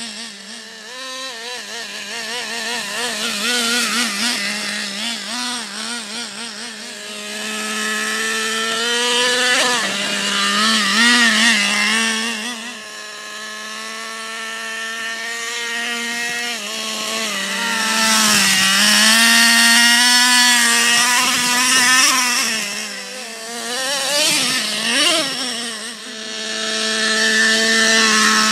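Traxxas Revo 3.3 nitro RC truck's small two-stroke glow engine running and revving, its pitch rising and falling again and again as the throttle is worked. It swells louder and fades several times as the truck moves, and is loudest close by at the end.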